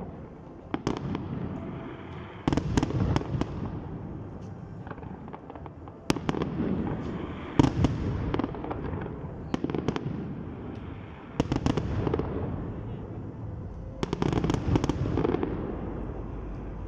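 Aerial fireworks display: shells bursting in a series of sharp bangs every second or two, some in quick clusters, each trailing off in a low rumble.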